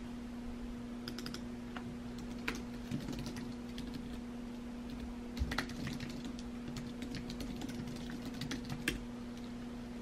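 Typing on a computer keyboard: irregular key clicks, some in quick runs, that stop about nine seconds in, over a steady low hum.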